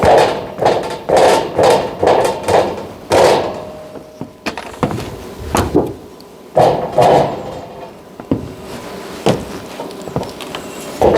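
Irregular knocks and clatter, about a dozen uneven strikes with gaps between them, typical of hand work on building materials.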